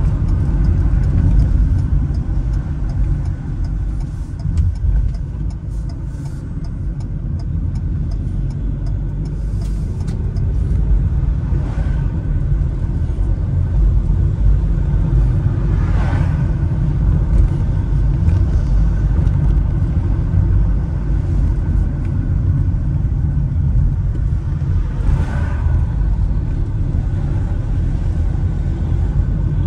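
Steady low rumble of road and engine noise inside a moving road vehicle, with brief louder swells about twelve, sixteen and twenty-five seconds in.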